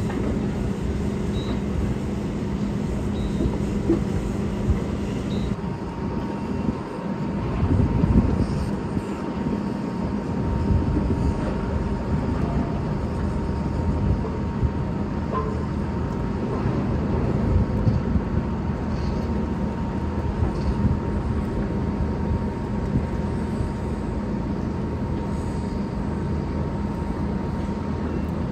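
Construction-site machinery noise: a steady low diesel rumble with a constant hum from heavy plant, swelling louder for a moment about eight seconds in.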